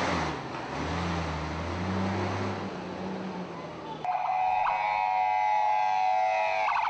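Vehicle engine running with road noise, then about four seconds in an ambulance siren starts, a loud steady wail of several tones.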